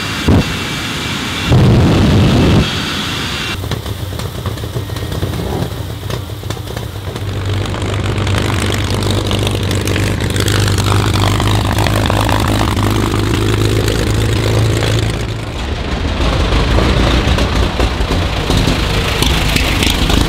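A jet engine on a show school bus fires two loud blasts, the second about a second and a half in and lasting about a second. Then the large engines of early vintage racing cars run as they drive past. One runs with a steady low drone and a sweep that falls and rises again as it passes, and another follows near the end.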